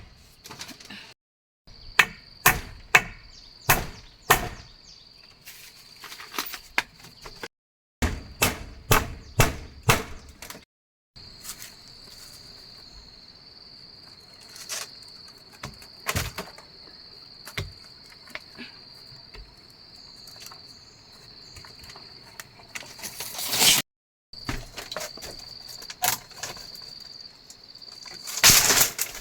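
Insects keep up a steady high-pitched drone. Over it come runs of sharp knocks, about two a second, like hammering or chopping, and then a few single knocks; the sound cuts out abruptly several times.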